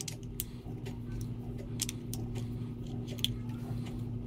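Phillips screwdriver turning out small screws from the primer housing of a Mercury outboard carburetor, with scattered light metal clicks of tool and parts being handled, over a steady low hum.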